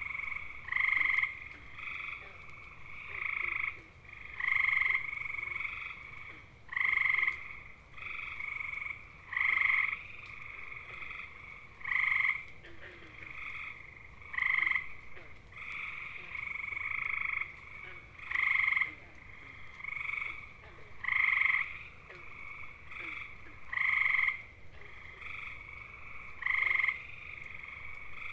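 Male gray tree frogs (Hyla versicolor) giving their mating call: a loud, musical, bird-like trill about half a second long, repeated every two to three seconds. Fainter trills from other males fill the gaps between them.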